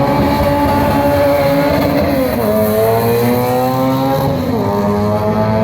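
Honda drag car's engine accelerating hard down the strip, the revs climbing and then dropping sharply at upshifts about two seconds and four and a half seconds in.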